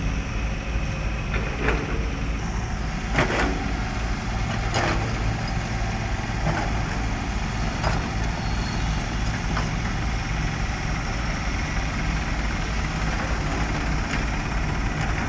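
Diesel engines of heavy earthmoving machinery running steadily. Over the first ten seconds there is a series of sharp knocks, about one every second and a half.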